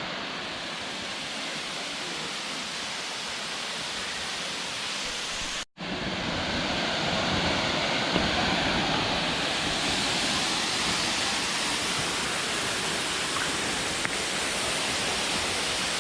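Waterfall rushing steadily. It cuts out sharply for a moment about six seconds in, then comes back louder and closer.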